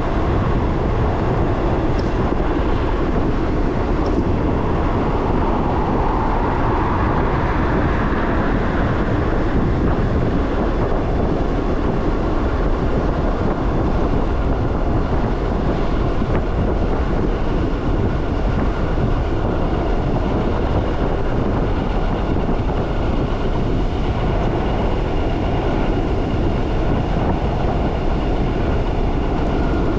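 Riding noise on an e-bike: a steady rush of wind buffeting the microphone over a rolling rumble, with a faint steady whine joining about halfway through.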